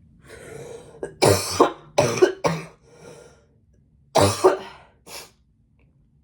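A woman coughing in several hard fits with some throat clearing: a first fit about a second in, more coughs just after, another fit about four seconds in and a short last cough.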